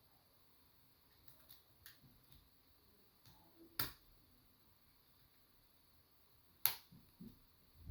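Faint metallic clicks and ticks of a hook pick and tension wrench working the pins of a challenge lock, with two sharper clicks about four and seven seconds in.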